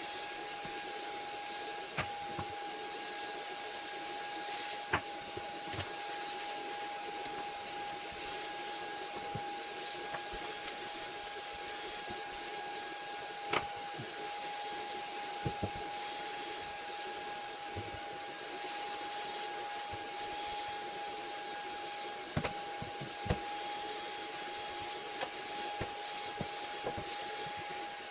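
Vacuum cleaner running steadily, a rushing noise with a constant high whine, broken now and then by sharp clicks and knocks.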